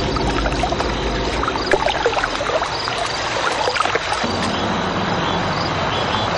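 Water splashing and sloshing as a person wades through it carrying someone, with scattered splashes in the first half. About four seconds in, a low steady hum comes in.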